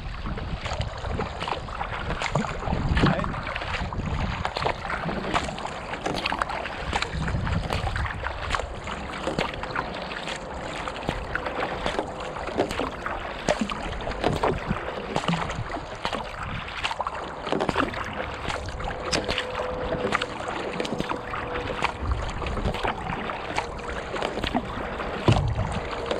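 Water rushing and splashing along the hull of a kayak under way, picked up close to the deck, full of small crackling drips and splashes. A low rumble comes and goes every few seconds.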